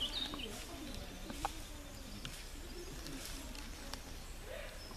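Dove cooing softly in woodland, with a short high bird chirp at the start and another brief call near the end.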